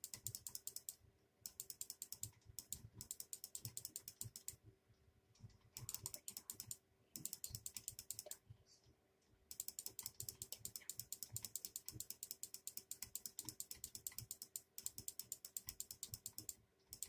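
Rapid, even clicking, about eight clicks a second, in runs of a few seconds that stop and start again several times.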